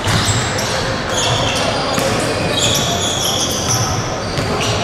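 Basketball game play: a ball bouncing and several short, high sneaker squeaks on the court floor.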